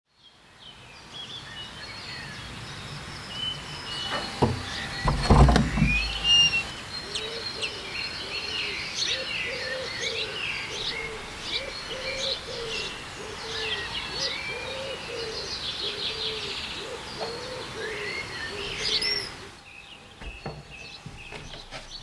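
Songbirds chirping and singing in a busy spring chorus, with a lower call repeated about once a second through the middle of it. A few loud low thumps come about five seconds in. The chorus falls away near the end.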